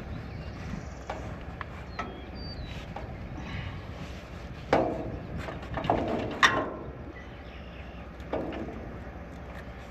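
Tractor engine running with a low steady hum under a few separate metal knocks and clanks, heaviest in the middle, as a drum mower is worked off the tractor's hitch.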